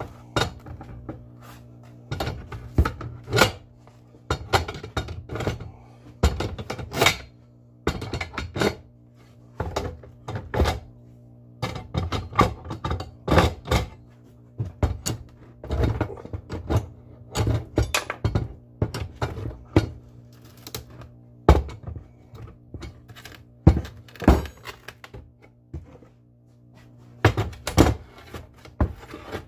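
Irregular thunks and metal clanks of a pry bar and steel bolts knocking against a wooden seat board and galvanized swivel seat mounts as the mount is unbolted, with a steady low hum underneath.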